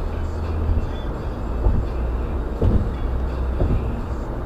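Road noise of a car driving at highway speed: a steady low rumble of tyres and engine, with a few thumps about a second apart near the middle.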